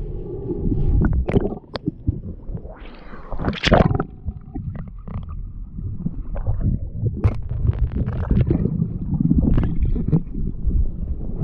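Muffled underwater rumble and water movement picked up by a submerged camera during a spearfishing dive, with scattered sharp clicks and knocks and a swell of hiss about three to four seconds in.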